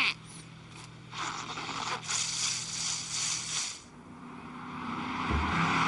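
Cartoon sound effects: a short bird-like cheep at the start, then a rushing, rattling noise for about three seconds, and a car noise building up near the end, over soft background music.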